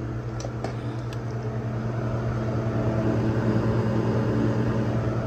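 Reach-in cooler's condensing unit running: a steady hum from the freshly replaced compressor together with the whir of the condenser fan, growing slowly louder. A few light clicks come in the first second.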